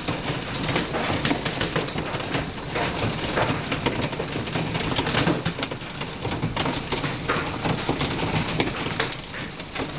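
Hail and heavy rain pelting the backyard and pool: a dense, irregular patter of many small hits over a steady rushing hiss.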